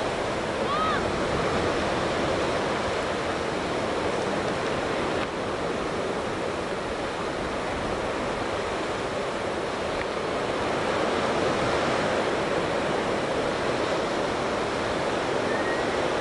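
Steady wash of ocean surf breaking in a sandy cove, with wind. A faint short chirp sounds about a second in and another near the end.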